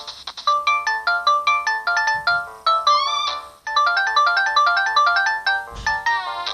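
A Samsung GT-E1205T polyphonic ringtone playing from a Samsung GT-E2250 mobile phone's speaker: a quick electronic melody of rapid short notes, with sliding pitch sweeps twice and a brief break about three and a half seconds in.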